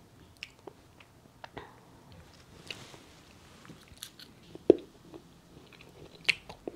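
Close-up mouth sounds of biting into and chewing a whisky-filled chocolate bottle: scattered small wet clicks, with a sharper snap about two-thirds of the way through.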